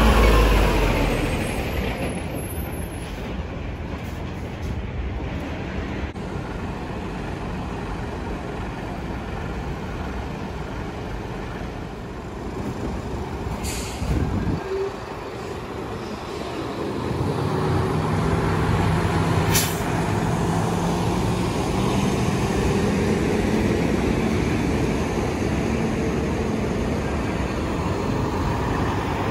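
Heavy diesel trucks in traffic: a Hino tractor unit hauling a container passes close by at the start, its engine noise fading over a couple of seconds, then trucks idle and move off at an intersection. Two short air-brake hisses come about halfway through and again a few seconds later, and a truck engine hum builds close by in the second half.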